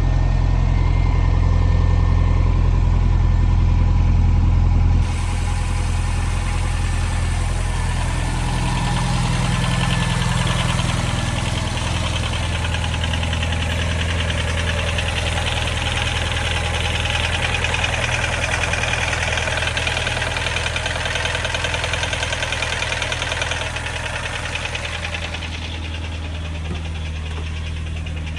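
Subaru Impreza STI's turbocharged flat-four boxer engine idling steadily, with a fast light ticking clatter running through the idle that the owner suspects may be piston slap. The sound changes abruptly about five seconds in, becoming a little quieter.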